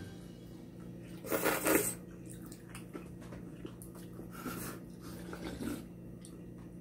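A person slurping spicy cold noodles, with one sharp slurp about a second and a half in, then softer chewing and eating noises. A low steady hum runs underneath.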